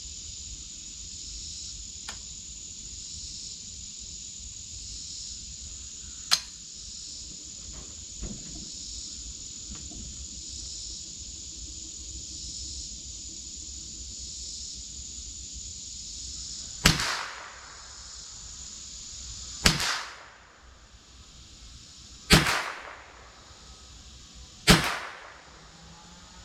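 Four shots from a Marlin Model 60 .22 semi-automatic rifle, spaced about two and a half to three seconds apart in the second half, over steady high insect chirring.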